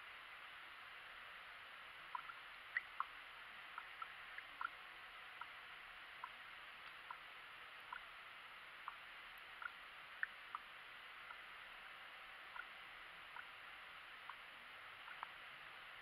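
Air bubbling up through fresh green coolant in a funnel on a Mitsubishi Colt's radiator filler: about two dozen small, irregular plinks and gurgles, starting about two seconds in. This is trapped air working out of the cooling system as it is refilled, which slows the coolant's flow.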